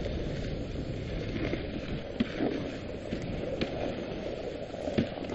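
Dog sled running over a packed snow trail: a steady scraping hiss of the runners on snow, with a few sharp knocks from the sled, the loudest about five seconds in.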